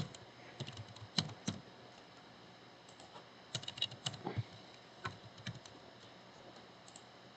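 Computer keyboard keys being typed, faint, in short scattered runs with pauses between them and a sharper click right at the start.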